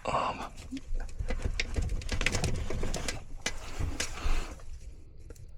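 Scattered clicks and knocks of hand work on a breaker box, with low grunting and breathing from the worker.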